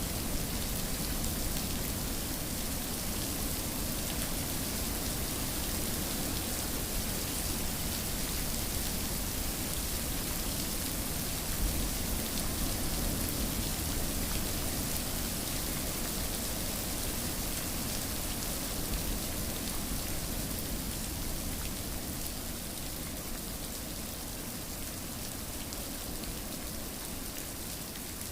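Steady rain falling and pattering on surfaces, a continuous even hiss with no thunder.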